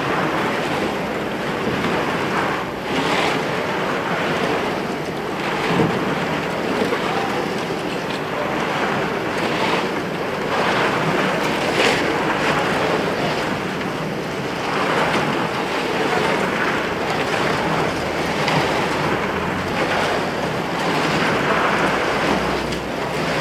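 Steady rushing and rubbing noise from a camera microphone carried in a jacket pocket, the jacket fabric brushing over the mic as the wearer walks.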